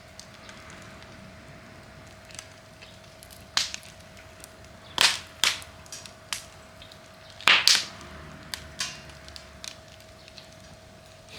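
Wood fire crackling, with sharp pops at irregular intervals. The loudest come as quick doubles, about halfway through and again about two-thirds through.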